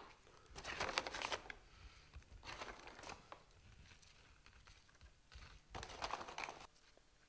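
Plastic food packaging crinkling as it is handled, in three short bursts of rustling.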